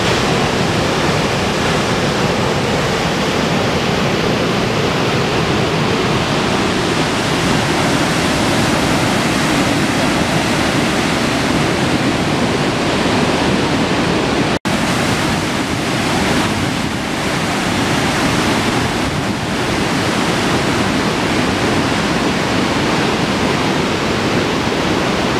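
Floodwater rushing down a dam's overflowing concrete spillway, a loud, steady noise of churning white water. It cuts out for an instant about halfway through, then carries on.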